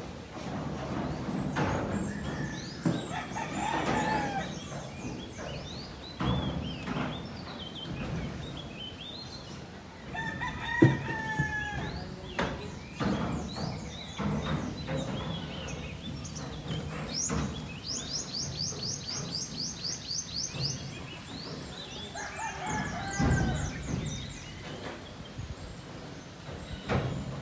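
Roosters crowing again and again, with chickens clucking. A single sharp knock about eleven seconds in is the loudest moment.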